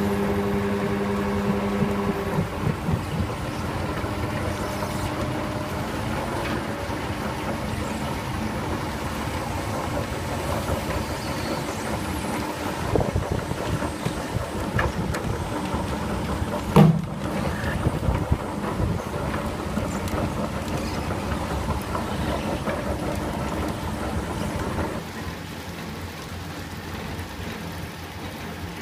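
Grape crusher-destemmer running while bunches of white grapes are tipped into its hopper: a steady mechanical clatter and rumble. There is a short hum at the start and a single knock about 17 seconds in, and the noise drops quieter about 25 seconds in.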